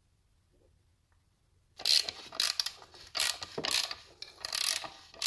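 A line reamer turned with a socket wrench through the camshaft bearing bores of a ZMZ-406 cylinder head, in short repeated strokes of clicking and scraping that start about two seconds in. This is the reaming of worn camshaft bores under new, trimmed caps, a repair for lost oil pressure.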